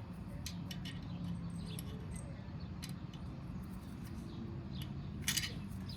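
Allen key working a motorcycle engine cover bolt: scattered small metal clicks and squeaks, with a sharper squeak about five seconds in as the bolt breaks loose, over a steady low hum.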